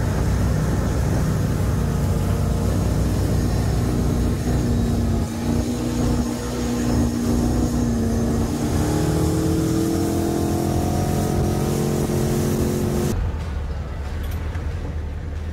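Engine of a WaterCar H1 Panther amphibious Hummer running hard as it speeds across the water, with water rushing past. The engine pitch rises from about 8 s to 13 s as it speeds up. Near the end the sound changes abruptly to a quieter, duller engine as the truck drives out of the water.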